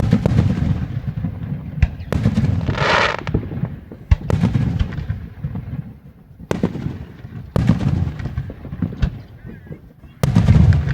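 Fireworks going off: a string of about ten sharp bangs at irregular intervals, each followed by a low rumbling echo, with a hissing burst about three seconds in.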